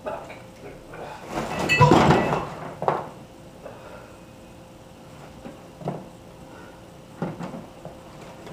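Handling noise: a loud rustling clatter about a second and a half in, then single knocks, one soon after and two more near the end.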